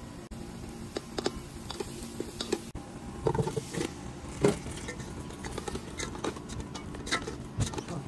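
A spatula clicking and scraping against a non-stick pot as raw chicken pieces are dropped in and stirred through the spices, with many irregular knocks that grow busier partway through.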